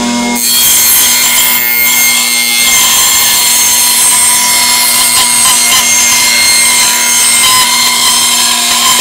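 Table saw cutting through a sheet of plywood: the motor runs at speed and the blade bites into the board about half a second in, running steadily with a high whine as the sheet is pushed through.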